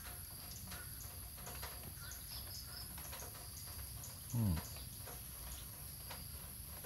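Faint small clicks and ticks of a puppy gnawing on a string, over a steady high insect drone. A brief low vocal sound falling in pitch comes about four seconds in.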